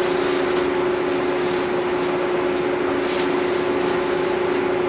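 Walk-in cooler's refrigeration unit running: a steady, even machine hum over fan noise.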